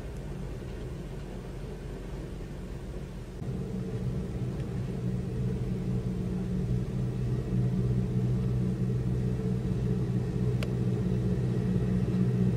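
A harbour cleaning catamaran's engine running steadily as the boat passes close by: a low drone that grows louder from about three and a half seconds in.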